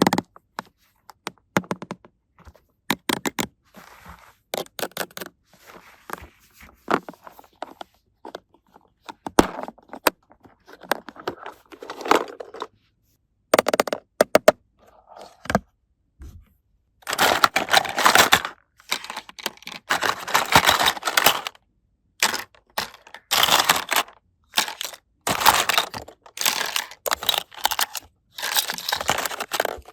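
Unboxing a plastic toy kitchen set: a run of small plastic clicks and taps. Past the halfway point come repeated longer bursts of crinkling and tearing packaging.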